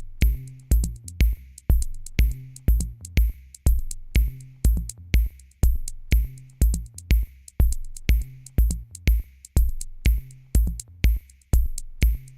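Electronic music with a steady drum-machine beat: a deep kick and sharp hi-hat-like ticks, about two beats a second.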